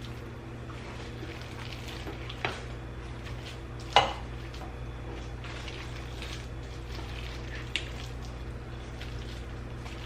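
A utensil scraping and clinking against dishes as cooked rice casserole is scooped from one container into another, with two sharp ringing clinks about two and a half and four seconds in, over a steady low hum.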